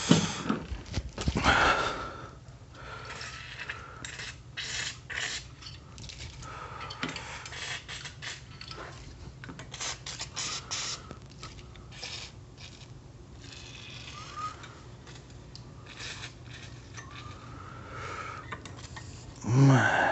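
The detached recoil starter of a Honda 1400-watt generator worked by hand: the rope pulled out and let wind back in over and over, with repeated scraping and clicking. The starter is sticking and is being worked loose with oil. There is a brief, louder pitched sound near the end.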